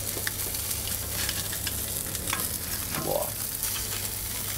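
Marinated salmon skewers sizzling steadily on the hot grate of a charcoal kamado grill, with a few faint ticks and pops.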